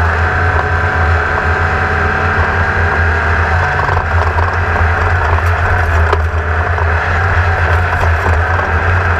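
Class 1600 off-road race car's air-cooled VW flat-four engine running hard at a steady drone, with rushing noise and a few sharp knocks from the chassis over rough ground.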